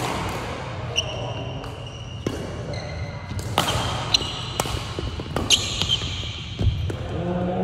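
Badminton rally: sharp cracks of rackets striking the shuttlecock about once a second, with short high squeaks of sneakers on the gym floor, echoing in a large hall. A voice starts near the end.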